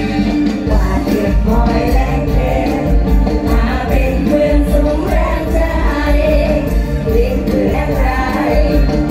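Live Isan mor lam band music played loud through a stage PA, with a heavy steady bass beat; singers' voices come in over it about a second in.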